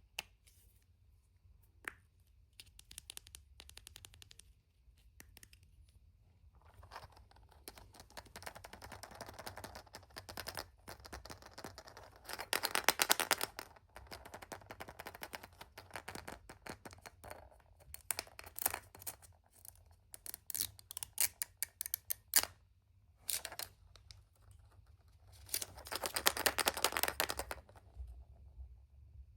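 Hands unwrapping and opening a toy surprise egg: the wrapper crinkles and rustles in several bursts, the loudest about halfway and near the end, with scattered clicks and scrapes of plastic between them.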